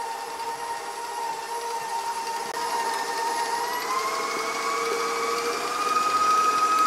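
A bowl-lift stand mixer running, its beater working a thick chocolate mousse-like filling in a steel bowl. The motor's steady whine steps up in pitch about halfway through and then holds.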